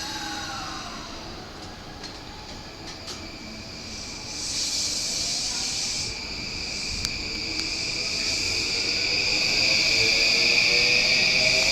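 JR East E235 series electric train pulling away after its doors close. Air hisses twice as the brakes release, then the motor whine sets in and climbs steadily in pitch as the train accelerates, growing louder, over a steady high tone.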